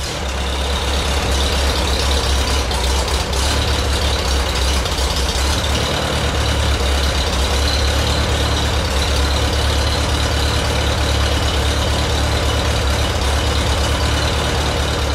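Farmall A tractor's four-cylinder engine running steadily on a cold start in freezing weather, a loud, even low hum.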